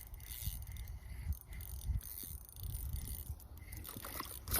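Wind buffeting the microphone as a low rumble, with uneven light rattling and hiss over it.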